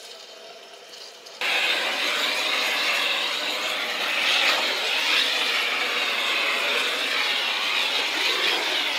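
Hose-fed gas torch burning with a steady hiss as it heats tar poured into the seams of a wooden boat's bottom, so that the tar flows and spreads evenly. It comes in suddenly about a second and a half in.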